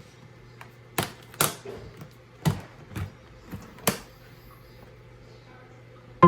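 About six sharp clicks and knocks at uneven intervals over a low steady hum, the last of them about four seconds in.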